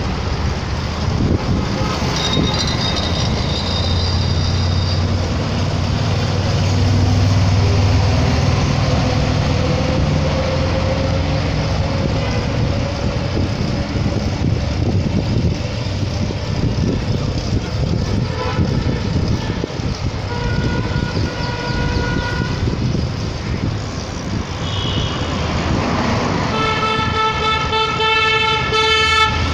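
Road traffic: engines rumbling and vehicles passing close, with short horn honks now and then. A loud horn of several tones sounds in long blasts near the end.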